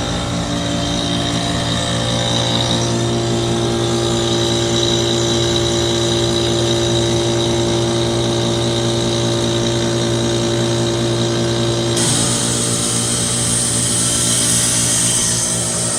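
A 5-ton 2006 Trane XB13 heat pump, with a bad capacitor, runs with a steady mechanical hum during its defrost cycle. About twelve seconds in, one tone in the hum cuts out and a sudden loud hiss of rushing refrigerant starts, typical of the reversing valve shifting in defrost; the hiss fades over the next few seconds.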